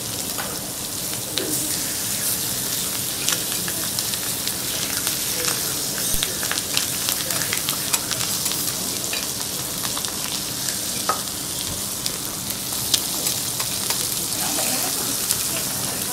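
Pork steak and chicken sizzling in fat on a flat steel teppanyaki griddle: a steady hiss with frequent small pops and crackles.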